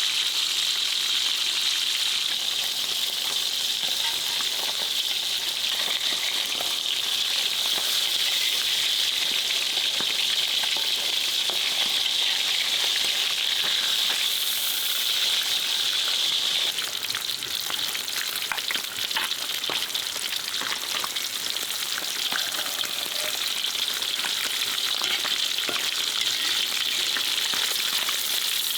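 Food frying in a hot pan: a steady sizzle with scattered crackles, easing a little about seventeen seconds in.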